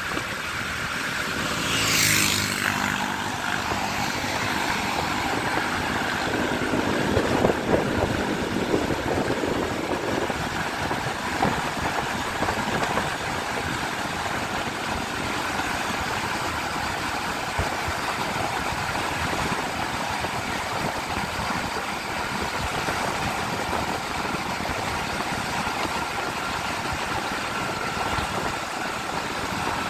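A motorcycle running at cruising speed, with a steady rush of wind and road noise over the engine. A short falling whoosh comes about two seconds in.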